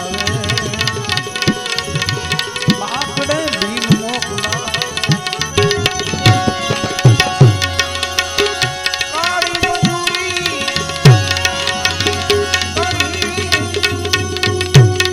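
Instrumental interlude of Gujarati devotional folk music: tabla playing a rhythm with bass strokes that slide down in pitch, over a melody instrument and a steady drone.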